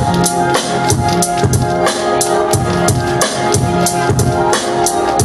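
Electronic hip-hop beat played live from a laptop and pad controller: drum-machine kick, snare and hi-hats in a steady repeating pattern under sustained synth chords and a bass line.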